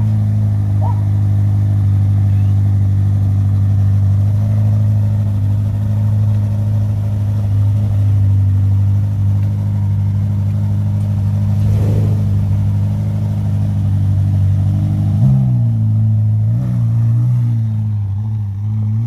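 Ferrari SF90 Stradale's twin-turbo V8 idling with a steady, low note. About fifteen seconds in, the note steps up and wavers as the car pulls away slowly.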